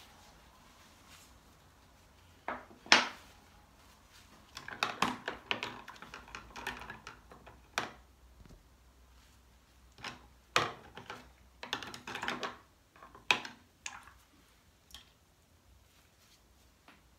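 Irregular light knocks and scratchy rubbing of painting tools being handled and worked on paper on a work table, with a few sharper taps among them.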